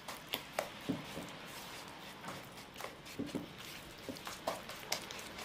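Silicone spatula stirring and folding a soft cornmeal-and-flour dough in a wooden bamboo bowl: irregular knocks and taps of the spatula against the bowl, several a second at times, over soft scraping.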